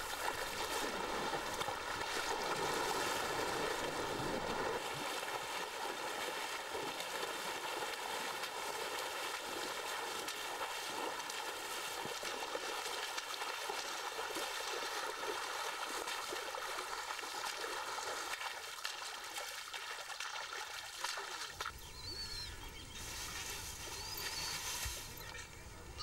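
Water swishing and splashing around an elephant's legs as it wades through a shallow river. About four seconds before the end this gives way to a different, quieter background with a couple of short chirps.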